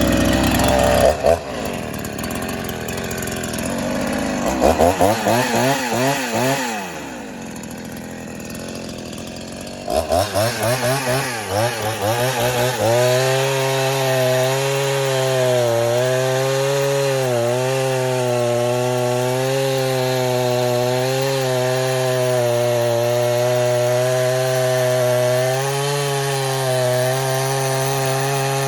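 Rebuilt Husqvarna 353 two-stroke chainsaw, fitted with a 48 mm big-bore cylinder and piston. It revs up and down several times, then holds a steady pitch from about thirteen seconds in through a long cut.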